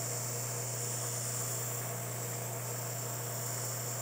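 Steady low electrical hum with a faint hiss over it.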